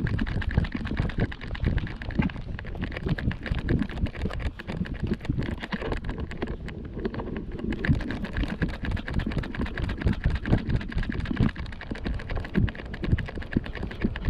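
Walking sounds: footsteps on a paved path and the knocks of a handheld camera stick being jostled, a dense run of irregular taps over a low rumble.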